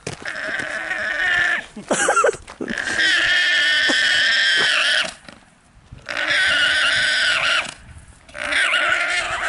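Llama calling loudly at close range: four long high-pitched cries, each held for one to two seconds with short pauses between, and a brief squeal about two seconds in.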